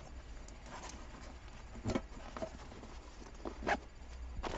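An olive-drab nylon gear pouch being handled on a cloth-covered table: soft rustling of the fabric with a few light knocks, the sharpest about two seconds in and again near four seconds.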